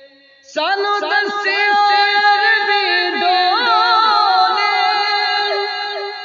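Background devotional song, a naat sung in Urdu/Punjabi, with a wavering melodic vocal line. After a brief lull, a new sung phrase begins about half a second in and carries on.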